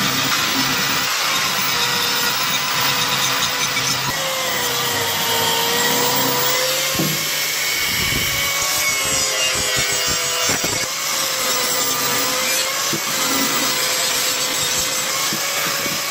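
Electric angle grinder with a red abrasive sanding disc running and sanding the bare metal of a pedestal fan's motor housing and blades. The motor's whine wavers and sags slightly as the disc is pressed into the metal, over a steady grinding rasp with a few brief knocks.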